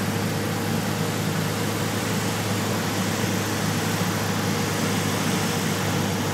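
Piper PA-28 light aircraft's piston engine and propeller, heard inside the cabin as a steady drone with rushing airflow noise, unchanging in pitch and level.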